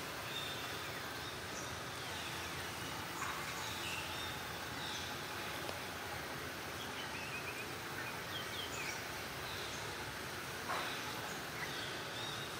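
Outdoor forest ambience: a steady background hiss with many short, high bird chirps and calls scattered throughout, and a brief faint knock about three seconds in and again near the end.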